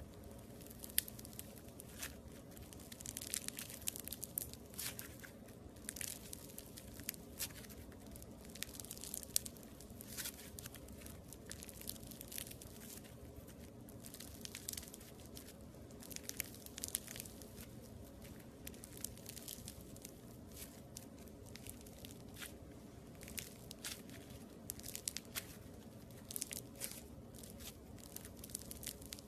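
Red floam, slime packed with tiny foam beads, squeezed, pressed and pulled apart by hand, giving off a run of irregular crunchy crackles and pops.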